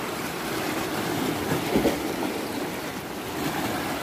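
Sea surf washing steadily over shoreline rocks.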